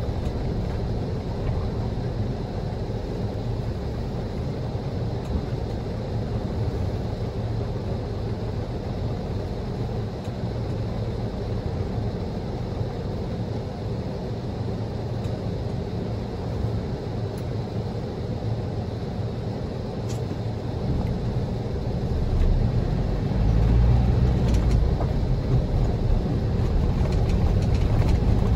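Car driving on a rough, snow-covered road: a steady low rumble of tyres and engine that grows louder near the end.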